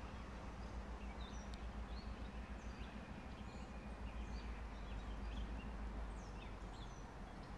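Songbirds chirping in many short high calls over a steady low rumble from the approaching GE diesel locomotive.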